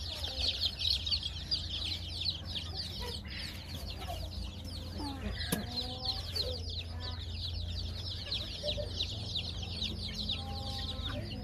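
A large brood of chicken chicks peeping nonstop, a dense chorus of quick high falling chirps, with a few lower clucking calls mixed in now and then.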